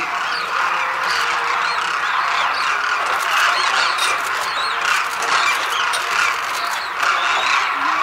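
A large flock of demoiselle cranes calling together: a dense, continuous chorus of many overlapping short calls.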